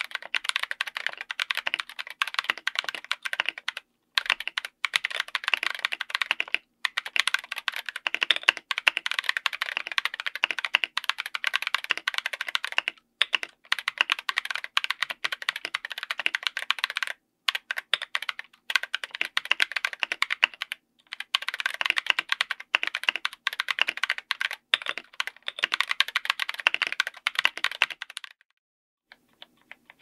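Steady two-handed typing on a mechanical keyboard with Kailh Super Speed Silver linear switches, SA-profile ABS double-shot keycaps, an FR4 plate and an aluminium case: a rapid run of keystroke clacks broken by a few brief pauses. The typing stops a couple of seconds before the end.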